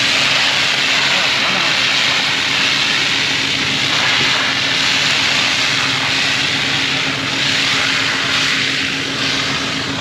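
A machine's engine running steadily under a loud, even hiss.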